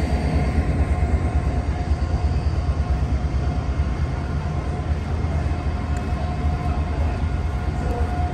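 Diesel train running at a station platform: a steady low rumble with a faint, even whine above it.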